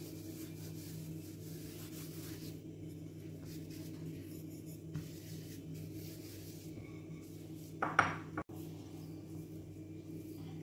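Floury hands rubbing and patting cornstarch over sheets of soft dough on a stone countertop: a soft rubbing over a steady low hum. About eight seconds in there is one short, loud clatter.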